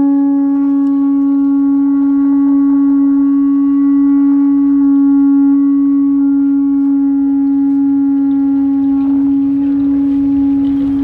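Pututu, an Andean conch-shell trumpet, blown in one long note at a steady pitch that cuts off near the end.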